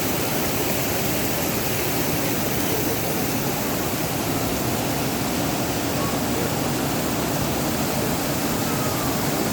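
Steady rush of water pouring in full flow from an overflowing irrigation tank.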